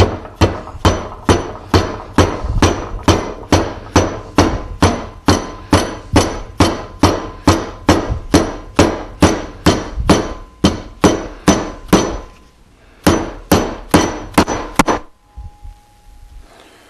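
Dead blow mallet striking a 16-gauge metal bracket held in a bench vise, bending it over: a steady run of sharp taps at about three a second. There is a short pause about twelve seconds in, and the taps stop about fifteen seconds in.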